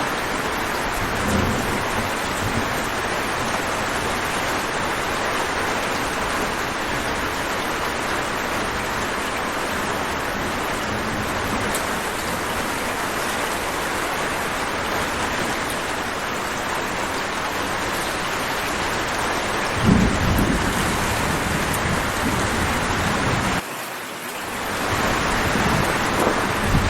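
Heavy rain pouring steadily, with low thunder rumbles, the loudest about three-quarters of the way through. Near the end the rain cuts out abruptly for about a second, then swells back in.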